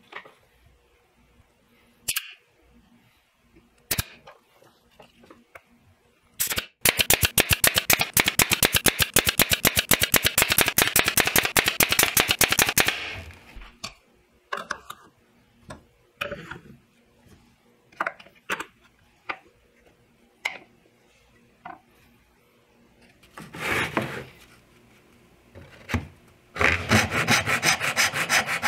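A few sharp single shots of a brad nailer early on. Then a hand saw cuts wood in rapid, even strokes: a long loud spell about a quarter of the way in, and a brass-backed back saw cutting again near the end.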